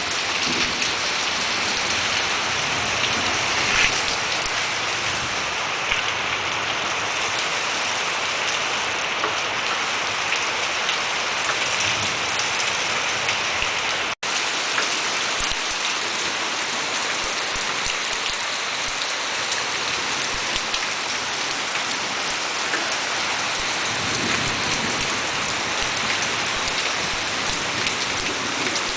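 Steady rain falling and pattering on surfaces during a storm, an even hiss with a momentary cut-out about halfway.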